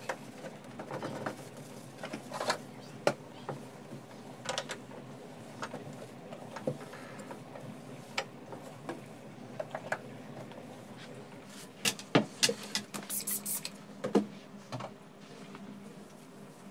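Cleaning sounds of a sponge scrubbing and wiping a soapy stainless-steel gas hob and countertop: soft rubbing broken by scattered sharp clicks and knocks, which come thickest in a burst near the end.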